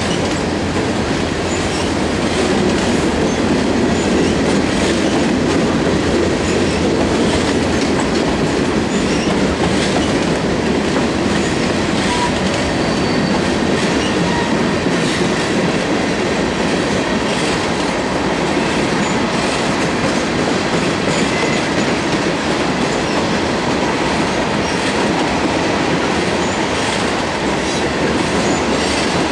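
Freight train cars rolling steadily past: a continuous rumble of steel wheels on rail with clickety-clack of wheels over rail joints.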